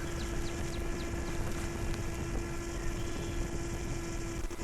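Small electric RC airplane's motor and propeller running steadily in flight, a constant buzzing drone at one pitch, with wind noise on the microphone.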